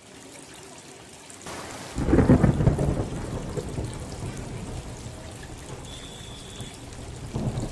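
Water from a homemade pump-fed tiered plastic fountain streaming off the plate rims and pattering into the tub below, like rain. A louder low rumble comes about two seconds in and fades over the next second.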